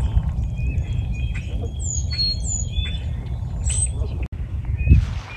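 Small birds chirping over and over in short, high, falling notes, over a steady low rumble, with a single thump about five seconds in.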